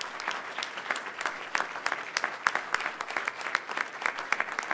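Audience applauding steadily, with many sharp individual hand claps, as honorees are welcomed on stage.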